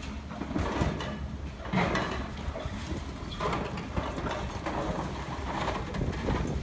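High-reach demolition excavator at work on a concrete silo wall: its engine runs steadily under irregular crunching and clattering of concrete breaking and debris falling, loudest about two seconds in.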